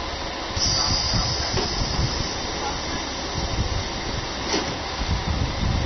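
Diesel railcar standing at the platform: a sharp hiss of compressed air starts about half a second in and lasts about a second, over the uneven low rumble of the diesel engine running. A short click follows later.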